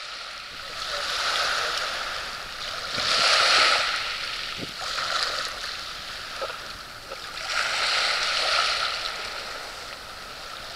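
Small waves washing in at the water's edge: a hiss of surf that swells and fades every few seconds.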